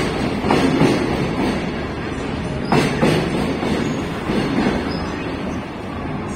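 Container freight train wagons rolling past at speed: a steady rumble of steel wheels, with pairs of sharp clacks as the wheelsets cross rail joints near the start and about three seconds in.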